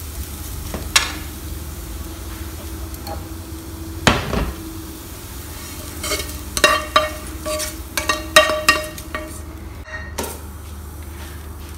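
Wooden spatula stirring and scraping a tempering of fried shallots and coconut in a nonstick pan, with a faint sizzle. About halfway through comes a run of knocks with a brief ringing of the pan as the tempering is scraped out into the chicken.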